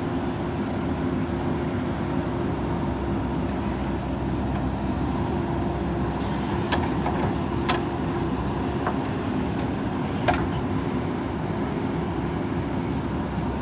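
JCB 3DX backhoe loader's diesel engine running steadily, with a few short, sharp knocks from the machine at work about halfway through.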